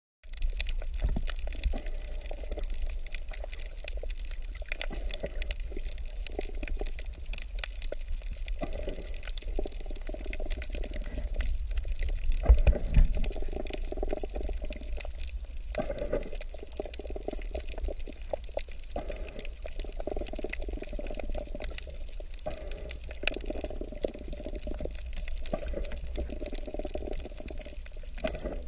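Underwater sound of moving, bubbling water with a steady low rumble and scattered small crackling clicks.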